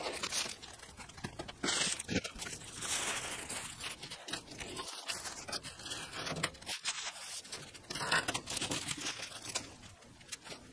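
Thin plastic masking film crinkling and tearing as it is pulled and pressed down with masking tape over a car body, coming and going unevenly.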